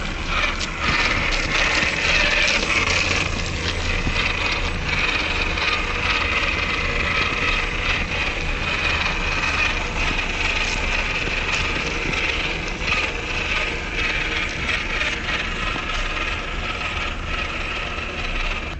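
Drivetrain of a WPL C74 radio-controlled Suzuki Jimny JA11 model, an electric motor with a two-speed gearbox and metal propeller shaft, whining steadily as the truck crawls over snow, with scattered clicks and rattles.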